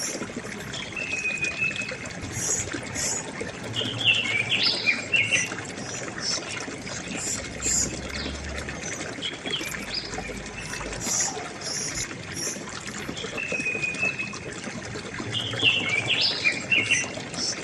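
River water trickling and flowing steadily, with small birds chirping over it. A short whistled call is followed by a burst of chirps, and the same sequence comes again about 12 seconds later.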